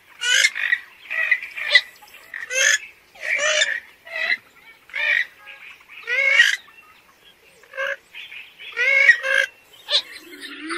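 Purple gallinule calling: a string of short, harsh cackling notes at uneven spacing, about one a second, with a quicker cluster near the end.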